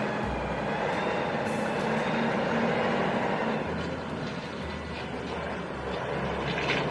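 Dump truck engine running steadily with a heavy, rumbling drone, cutting off abruptly at the very end.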